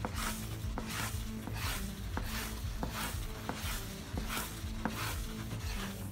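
A wooden spoon stirs thick, cooked-down guava paste in a nonstick frying pan, scraping and squelching in regular strokes about every two-thirds of a second. Background music plays underneath.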